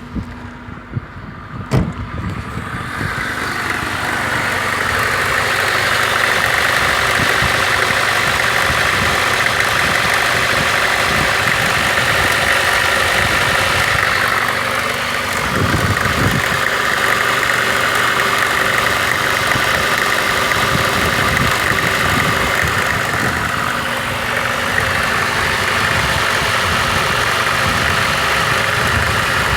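VAZ 2114's 1.5-litre 8-valve engine idling cold, with a crackling from around the cylinder head that is heard only while the engine is cold and goes away once it warms up. A sharp click comes about two seconds in, and the engine then grows louder over the next few seconds and stays steady.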